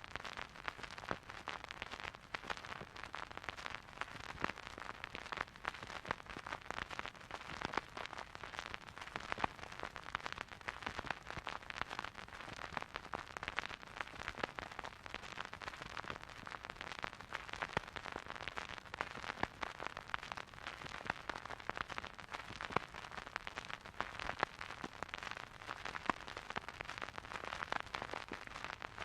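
Vinyl record surface noise: a steady hiss full of irregular pops and clicks from the stylus running in the groove, with no music.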